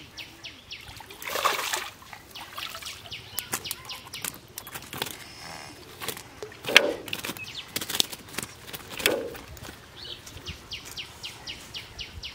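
A hooked fish splashing as it is pulled out of a pond, then a few sharper slaps and splashes as it flaps. Insects chirp behind it in a steady pulse of about four a second.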